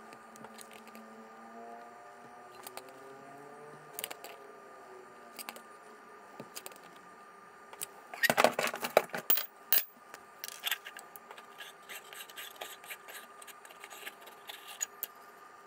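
Metal clinking and clattering as a drilled metal spinner head and hand tools are handled on a workbench, loudest in a burst of sharp knocks and scrapes about eight seconds in, followed by scattered light ticks and clinks.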